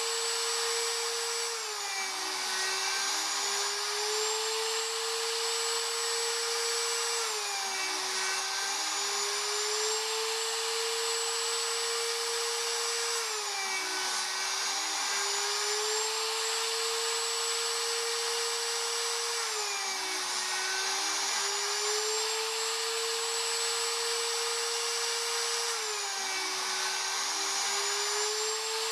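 Porter-Cable router motor on a CNC router cutting a round hole into a wooden block with a 1-inch bit: a steady high whine whose pitch sags and then recovers about every six seconds as the bit bites into the wood.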